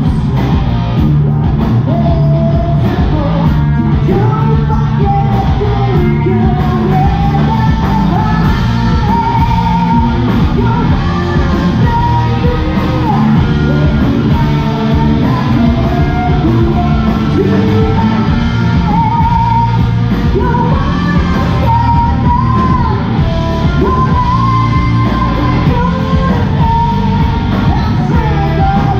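Live rock band playing loud and steady: a female vocalist singing and shouting over electric guitars, bass and drums.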